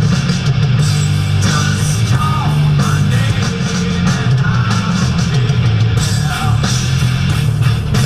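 Loud rock music playing continuously, with a heavy bass line and a driving beat.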